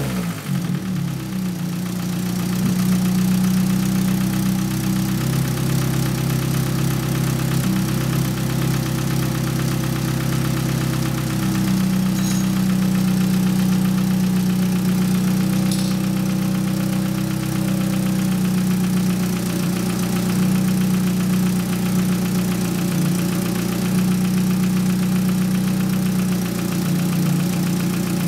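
Nissan SR20DET turbocharged four-cylinder engine idling, its note shifting slightly now and then, with the intermittent knocking from the cylinder head that the owner has not traced; lifters and cams have been swapped without curing it.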